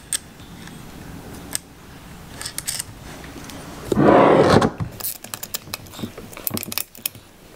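Small metal tool clicks and scrapes against the engine's steel coil bracket as M6 flange nuts are fitted and tightened, with a louder rasping burst about four seconds in and a run of quick clicks after it.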